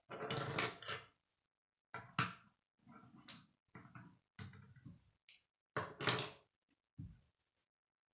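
Plastic K'nex rods and connectors clicking and clattering as they are handled and snapped together, in a series of short irregular rattles with a few sharper clicks.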